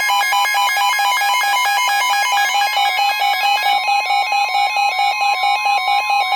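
Emergency Alert System alert tones: fast, evenly pulsing electronic beeps, joined about halfway through by a steady high tone. They signal a new severe thunderstorm warning about to be broadcast.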